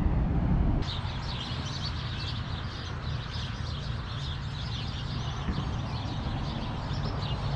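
From about a second in, many small birds chirp and sing at once in a dense dawn chorus, over a low steady background noise.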